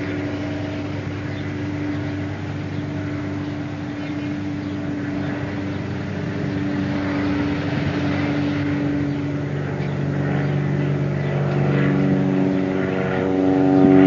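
A steady mechanical drone with several held tones over a light hiss, slowly growing louder, with deeper tones joining in the last few seconds.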